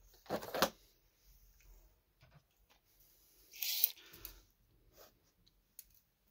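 Handling noises: the clear plastic blister pack crinkling as it is picked up and moved, a brief louder rustle about three and a half seconds in, and scattered small clicks as a tape measure is brought over the box.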